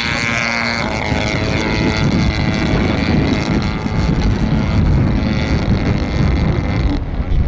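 Radio-controlled model airplane's engine and propeller running hard as it takes off and climbs away. The buzzing note drops in pitch during the first second as the plane passes, then holds steady.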